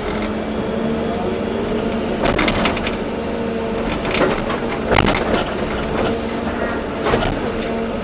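Volvo EC240B excavator's diesel engine running steadily, with a higher hydraulic whine that comes and goes. Several knocks and clatters of the bucket working soil break in, the loudest about five seconds in.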